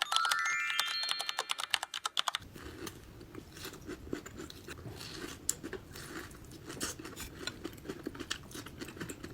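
Soft, irregular chewing and mouth sounds of someone eating mochi, with scattered small clicks. This is preceded by a brief, louder run of rapid clicks and stepped rising tones that stops about two seconds in.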